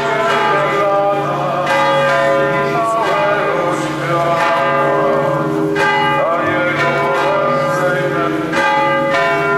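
Church bells tolling for a funeral: several large bells struck again and again, their long ringing tones overlapping.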